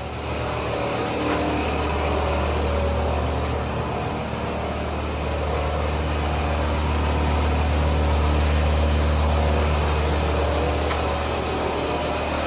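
Car engine running steadily, a low hum that swells a little in the middle and eases off again.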